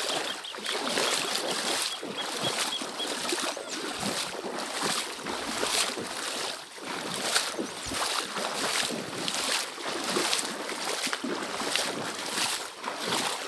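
Legs in rubber boots wading through boot-deep floodwater, each stride swishing and sloshing in a steady rhythm of about two steps a second.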